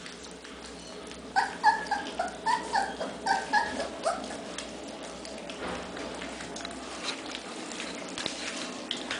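A 26-day-old basset hound puppy gives a quick run of about ten short, high yelps, starting about a second in and stopping about four seconds in. Under them and afterwards come the small wet clicks and newspaper rustle of the litter lapping weaning mush from a shared pan.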